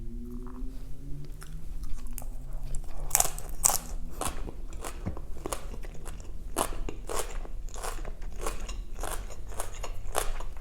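Close chewing of crunchy green papaya salad: crisp bites and crunches repeating about twice a second.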